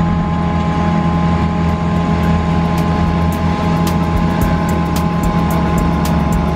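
Belarus 3022 tractor working a field with a front-and-rear disc mower combination: a steady, loud engine and machine drone with steady higher humming tones over it and irregular sharp ticks.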